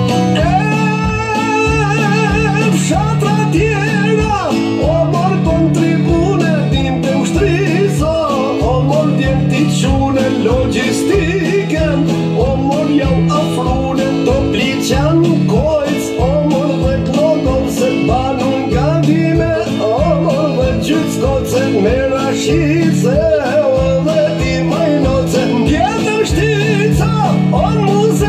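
A man singing an Albanian song into a microphone over a PA, his voice wavering with heavy vibrato and ornamented runs, over amplified instrumental accompaniment with a steady beat and a moving bass line.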